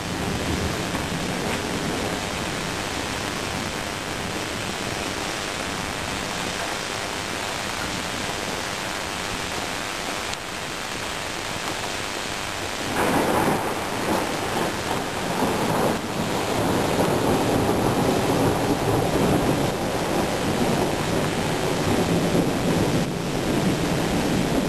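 Steady rain hissing during a thunderstorm. About halfway through, thunder breaks in suddenly and keeps rolling, louder toward the end.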